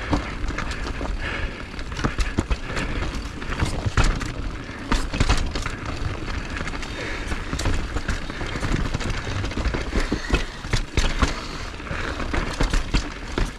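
Skis scraping and chattering over snow on a downhill run, with irregular knocks and clatters as they hit bumps, over wind rumbling on the microphone.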